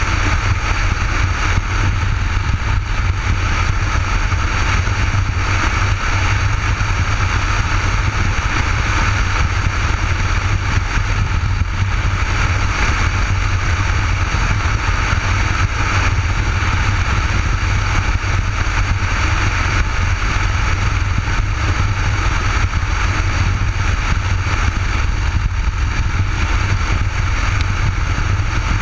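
Motorcycle riding at a steady road speed, heard from a helmet-mounted camera: a constant low drone under a steady rushing noise, with no changes in speed.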